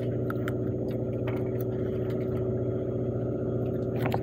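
Sportfishing boat's engine running steadily with an even, constant hum, with a few faint clicks scattered through it.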